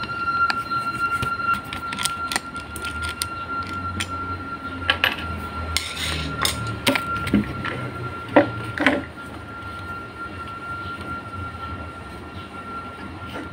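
Metal clicks and knocks as a dismantled electric fan motor is handled and prodded with a metal rod, with a louder run of knocks about six to nine seconds in. A steady high tone and a low rumble continue underneath.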